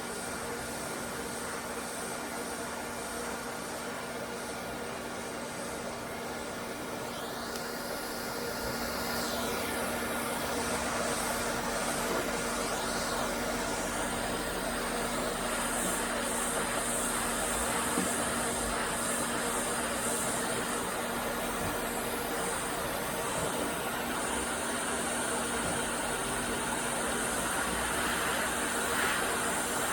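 ATTEN ST-862D hot air rework station blowing a steady hiss of hot air with a faint fan hum, used to desolder a USB socket from a circuit board. The hiss gets somewhat louder about eight to ten seconds in.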